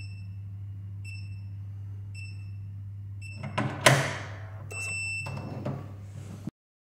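Digital door lock keypad beeping as code keys are pressed, about one beep a second, over a steady low hum. Midway a loud mechanical clack of the lock's latch, followed by a longer confirmation beep as it unlocks and the rattle of the door being worked, then it cuts off abruptly.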